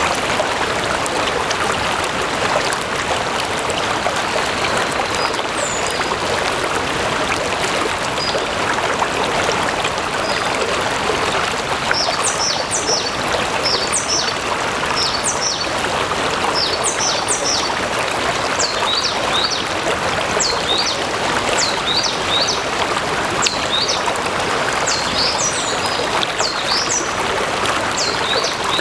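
A stream flowing steadily over rocks, a constant rushing and babbling of water. From about twelve seconds in, a small bird chirps over it again and again in short high calls.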